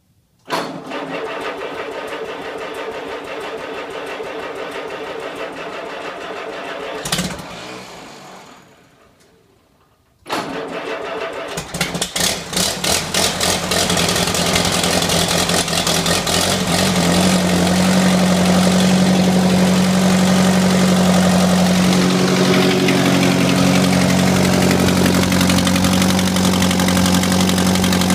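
Cold start of a 1948 Allis-Chalmers B tractor's four-cylinder engine at about 45 °F. A first attempt sounds for about seven seconds and then dies away. It is started again about ten seconds in, fires unevenly for a few seconds, then settles into a steady idle.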